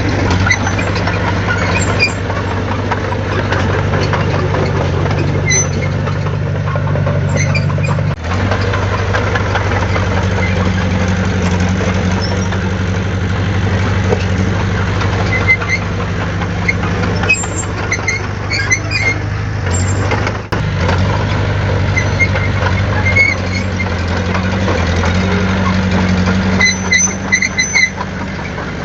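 Heavy diesel engine of earthmoving machinery running steadily, with short high-pitched squeaks now and then.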